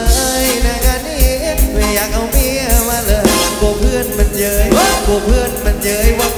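Live Thai ramwong band music: a singer with a wavering, vibrato voice over electric guitar and a steady drum beat.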